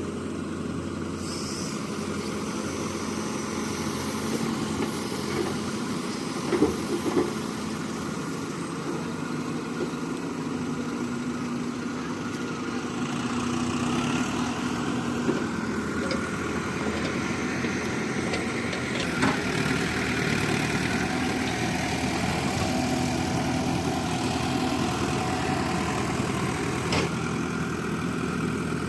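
Heavy diesel engine of a hydraulic excavator running steadily, growing a little louder about halfway through, with a couple of short knocks about a quarter of the way in.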